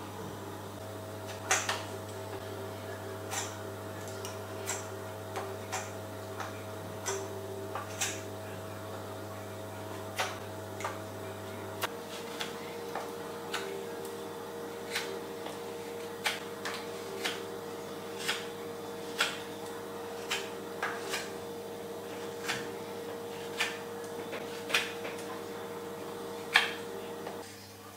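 Nessmuk knife blade shaving willow wood while carving a spoon: a string of short, crisp cuts about once a second. A steady faint hum runs underneath and drops slightly in pitch about twelve seconds in.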